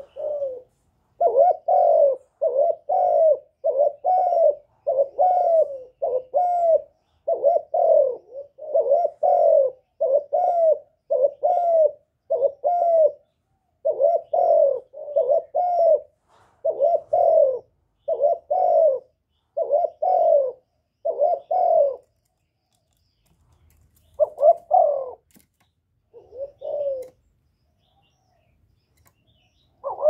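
Spotted dove cooing: a long run of short coos in twos and threes for about twenty seconds. After a short pause come a few more coos, then it falls silent near the end.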